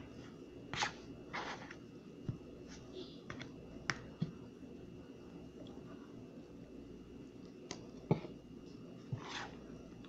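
Metal spoon stirring and scooping thick instant mashed potato in a plastic bowl: irregular soft clicks and a few short scrapes as the spoon knocks and drags against the bowl.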